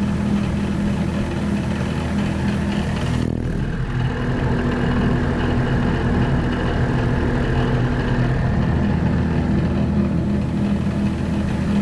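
15-inch drill press running steadily at 2400 RPM with a deliberately out-of-balance load on the spindle: a continuous low machine drone made of several steady tones.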